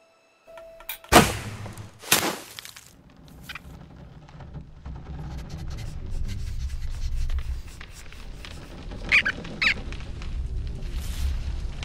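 Cartoon sound effects: two sharp whooshing hits about a second apart, then a low rumble that slowly builds, with two short high squeaks near the end.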